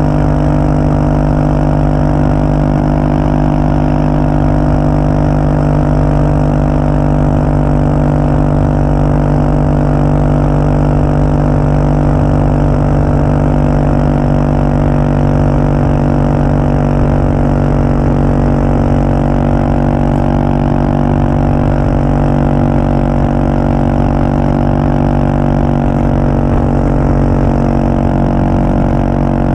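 Exhaust of the CCM DS 644's big single-cylinder engine, heard from close behind the end of the silencer, running steadily with no change in engine speed.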